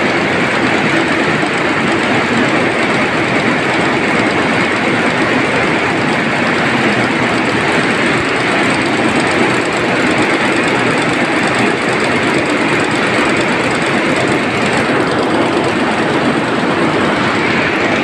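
Water-jet weaving looms running at speed: a loud, steady mechanical clatter without a break.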